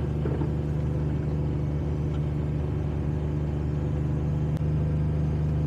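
John Deere Gator 835R utility vehicle's engine and drivetrain running steadily at low speed, heard from inside the cab, while AutoTrac steers it through a steering ratio calibration.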